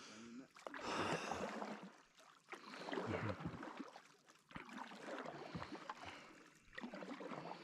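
Canoe paddle strokes in calm lake water: a rhythmic swish and gurgle of water around the blade, four strokes about two seconds apart.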